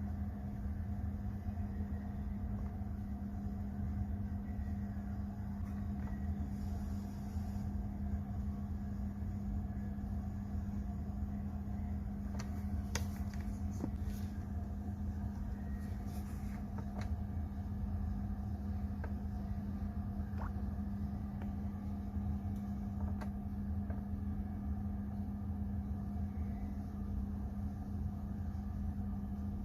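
BMW 530d's straight-six diesel engine idling steadily, a constant low hum and rumble. A few light clicks sound about halfway through.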